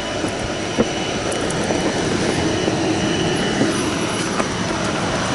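Steady rush of an aircraft turbine engine with a thin high whistle over it, heard through the opening cabin door, with a couple of faint clicks as the airstair door is lowered on its cable.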